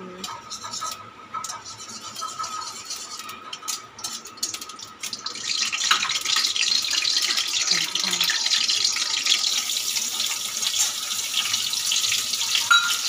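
Soaked, drained cashews and raisins frying in hot ghee in a metal kadai: about five seconds in, a loud, steady sizzle starts, made louder by the water they carry. Before that, the spatula clicks and scrapes against the pan over the quieter ghee.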